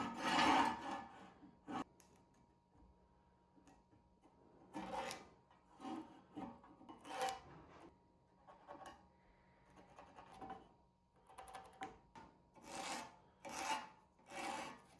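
Irregular short scraping and rubbing strokes of metal being handled at a workbench, a few at a time with quiet gaps between; the drill press motor is not running.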